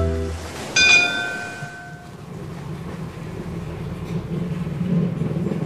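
The last notes of music stop, a single bell-like chime rings out just under a second in and fades over about a second, then a steady low rumble takes over.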